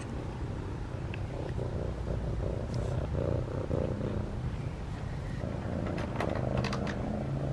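Domestic cat purring close to the microphone while being petted, a steady pulsing low rumble, with a few brief scratchy rubs near the end.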